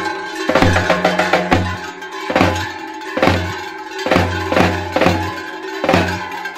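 Large bass drum beaten with sticks in a steady rhythm, about two strokes a second, with the clanging of big cowbells worn at the waist by survakari mummers ringing along.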